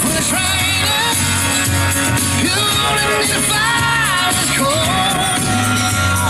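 Rock song with a singing voice, played loud over an outdoor public-address loudspeaker.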